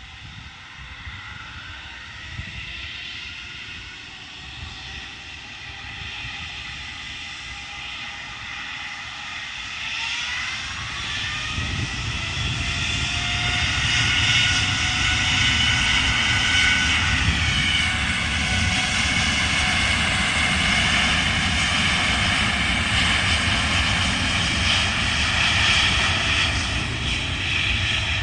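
Boeing 787 jet airliner on its takeoff run and climb-out, its engine noise building up over the first half and then staying loud. A high whine rises in pitch and then slides down about two-thirds of the way through as the aircraft passes.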